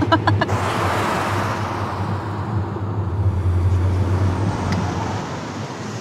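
Opel Cascada convertible driving with its top down: steady tyre and wind rush over a low engine hum, the rush swelling about half a second in and slowly easing off.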